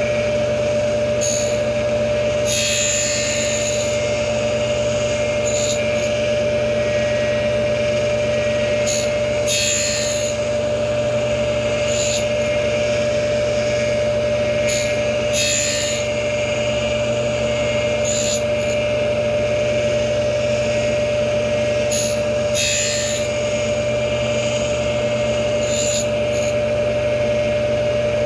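Tool post grinder running with a steady whine while its wheel grinds the teeth of a horizontal milling cutter. About every two to three seconds the wheel bites a tooth with a short bright hiss.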